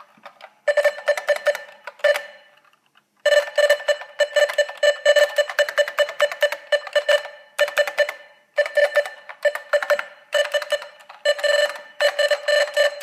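IBM 6112884 keyboard being typed on fast in several bursts with short pauses. Each keystroke comes with a short beep, the weird beep-beep noise that sounds while typing through the Hasu USB adapter.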